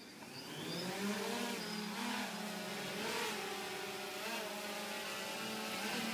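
Small quadcopter drone's electric rotors spinning up in the first second and lifting off, then a steady buzzing whine whose pitch wavers slightly as the drone climbs.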